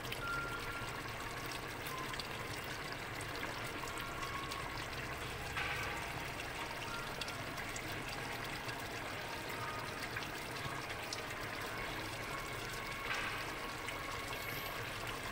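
Meat stew boiling in an open aluminium pressure-cooker pot on an induction hob, a steady bubbling and crackling, with the lid off so the liquid reduces.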